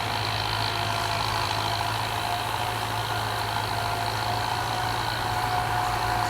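Kubota M9540 tractor's four-cylinder turbo diesel engine running steadily, with a thin steady whine over its low engine note.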